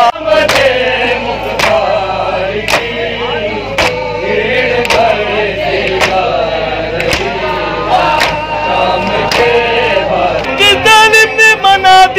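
Crowd of men chanting a noha in chorus, with sharp chest-beating slaps (matam) landing together about once a second. Near the end a single reciter's voice comes in strongly over the chorus.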